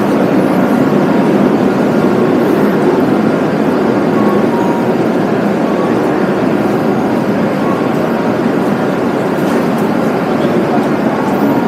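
Steady, loud rumble of a train in a railway station.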